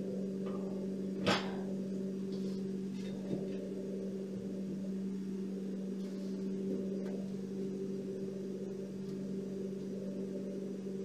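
Steady electrical hum, one low tone with a fainter higher tone above it, with a single sharp click about a second in.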